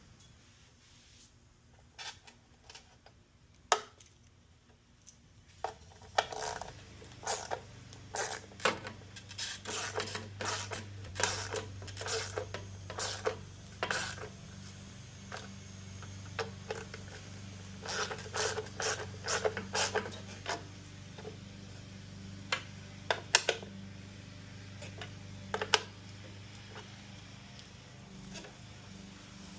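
Hand tools and metal and plastic parts clicking and clinking in scattered runs while a Ford F-150's headlight bucket is unbolted or fitted, over a steady low hum.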